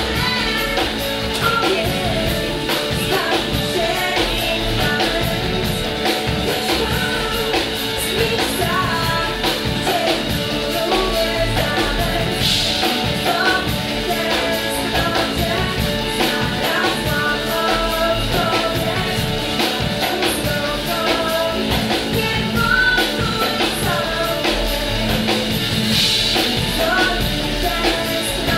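Live band music: drums, electric guitar and keyboards playing steadily, with singing over them.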